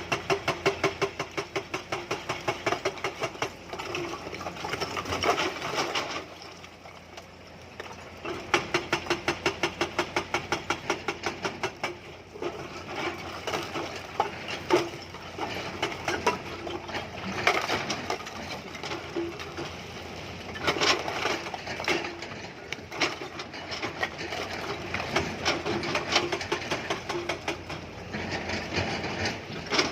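Hydraulic rock breaker on a Tata Hitachi excavator hammering stone in fast, evenly spaced blows. The blows come in runs, with a pause of about two seconds starting about six seconds in, over the steady running of the excavator's diesel engine.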